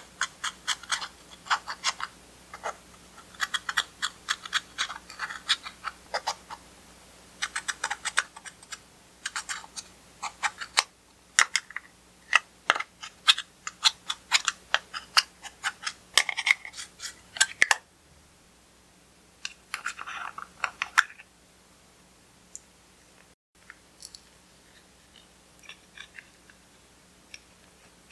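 Clear slime being kneaded and squeezed by hand, giving rapid sticky clicks and pops. The clicking is dense for most of the first two-thirds, stops, returns briefly, then thins to a few faint clicks near the end.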